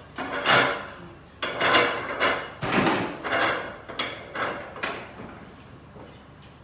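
Stainless-steel sieve stack and clamping hardware of a laboratory sieve shaker clanking as it is handled and clamped shut: a run of irregular metallic knocks with short ringing that die away after about five seconds.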